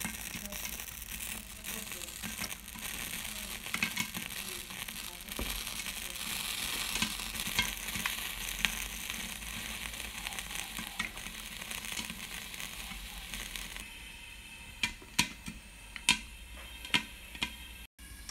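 Popcorn popping in a pan under a glass lid: a steady sizzle with frequent small pops. About fourteen seconds in the sizzle drops away, leaving a handful of sharp single pops.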